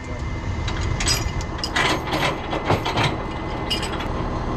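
Clanks, knocks and rattles of tow gear being handled, a quick run of them through the middle of the stretch, over the steady low hum of a running truck engine.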